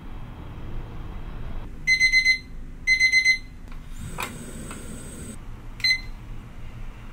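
Digital kitchen timer sounding its end-of-countdown alarm, two bursts of rapid high beeps about a second apart, marking the end of the cooking time. Then a click and a rush of gas as the stove burner is turned up to high, and one short beep as the timer is set again.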